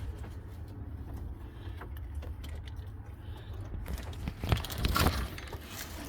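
Metallic rattling and a few sharp knocks, about four and a half to five seconds in, from handling the doves' enclosure, over a low steady rumble.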